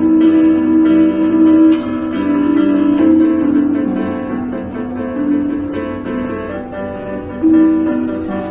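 Live instrumental music: a piano playing a melody of held notes.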